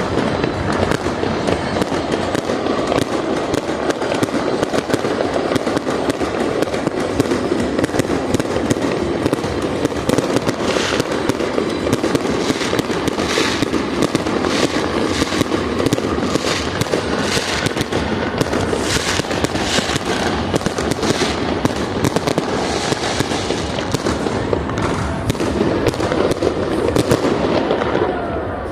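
Fireworks display: a dense, continuous barrage of crackling and rapid overlapping bangs, thickest in the middle stretch.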